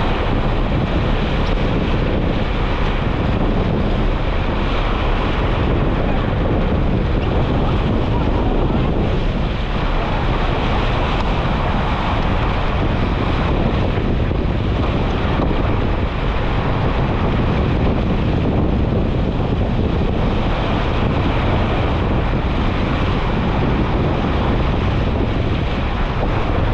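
Strong wind blowing over the action camera's microphone, mixed with water rushing along the hull of a J/99 sailboat sailing fast downwind in about 25 knots and rough seas. The noise is loud and steady.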